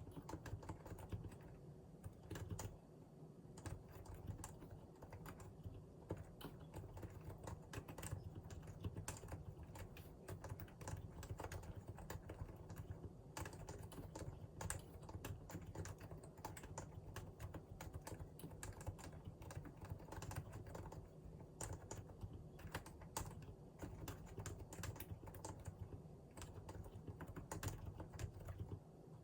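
Continuous typing on a Realforce R2 PFU Limited Edition keyboard with Topre electrostatic capacitive switches: a steady, dense run of keystrokes, several a second.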